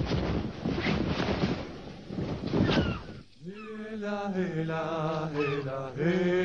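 Sea waves and wind with a gull crying, giving way about three seconds in to a man singing an unaccompanied nasheed in long held notes.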